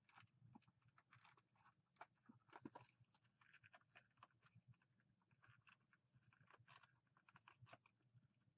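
Faint, irregular crackling and clicking of a small cardboard cosmetics box being handled and pried open by hand.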